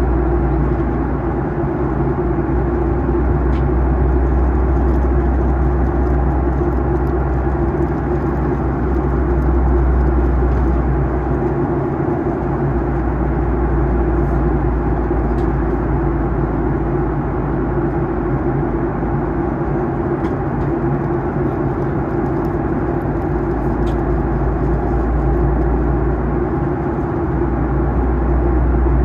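Steady cabin noise inside a Boeing 737-800 in flight during its descent: an even rush of air over a low engine rumble that eases briefly twice.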